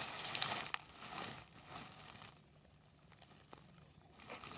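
Crinkly rustling and crunching close to the microphone, strongest in the first second and a half, then dying down to faint rustles with a couple of sharp ticks before picking up again near the end.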